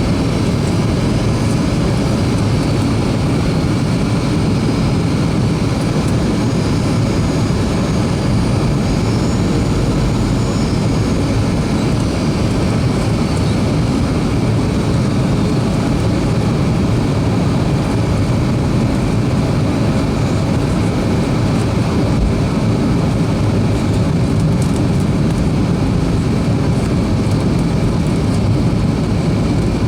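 Steady cabin noise inside a Boeing 737-300 on approach: an even rush of airflow and engine noise, strongest low down, with a faint high whine. The engines are CFM56-3 turbofans.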